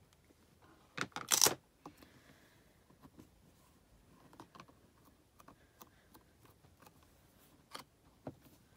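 Clear hinged plate of a stamp-positioning tool clacking as it is lifted off freshly stamped card, a few sharp knocks about a second in, followed by faint scattered taps of rubber stamps and card being handled.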